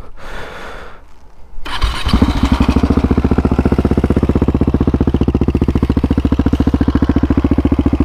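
Husqvarna 701 Supermoto's single-cylinder engine starting, catching about two seconds in and settling into a loud, even tickover with a steady pulse. It runs through a Wings exhaust with no baffle and an open airbox, which the owner blames for the noise, with the silencer packing thought to be dead.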